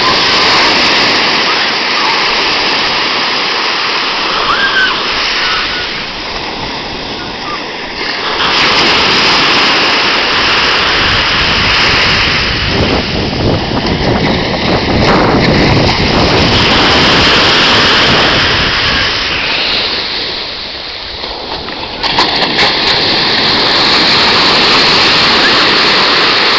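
Ocean surf: waves breaking and washing up the shore in a loud, continuous rush that swells and eases wave by wave, with brief lulls about seven and twenty seconds in.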